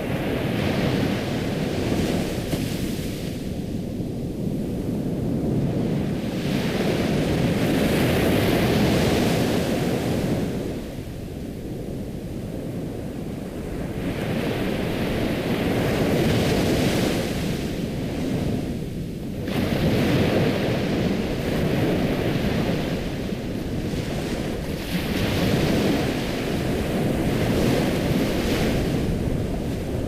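Ocean waves washing in, a steady rush of surf that swells and falls every few seconds.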